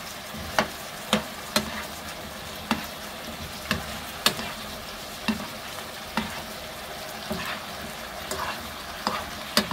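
Potato cubes in gochujang sauce sizzling in a frying pan as a spoon stirs them, with about a dozen irregular clicks and knocks of the spoon against the pan.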